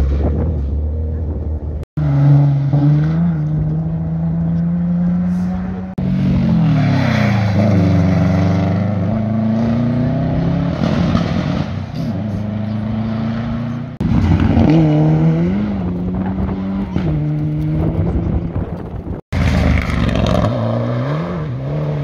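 Several rally cars in turn accelerating hard through a junction, engines revving up and dropping back through quick gear changes. The sound jumps abruptly several times as one car gives way to the next.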